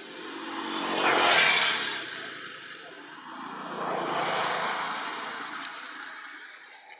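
Two motor vehicles passing by one after the other, each rising and fading away; the first, about a second and a half in, is the louder.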